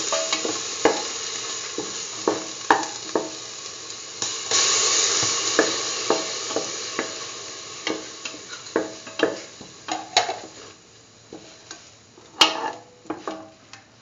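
Ground onion, tomato and chickpea paste sizzling in hot oil in a pan while a utensil stirs it, scraping and knocking against the pan over and over. The sizzle swells about four seconds in, then dies down, and a sharp clink on the pan comes near the end.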